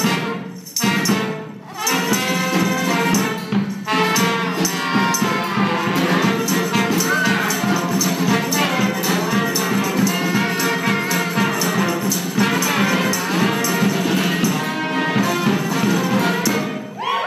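Lively live band music with a tambourine shaking along to a steady beat, briefly dipping twice near the start.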